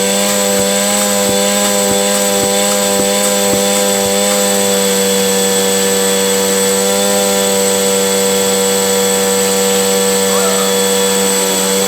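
Hoover vacuum cleaner running steadily at full speed just after being switched on, a constant motor hum with a higher whine. A few light clicks come through in the first few seconds.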